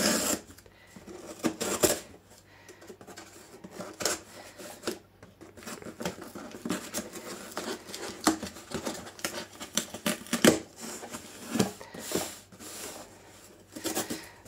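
Irregular clicks, taps and short scrapes of a cardboard parcel being handled and opened.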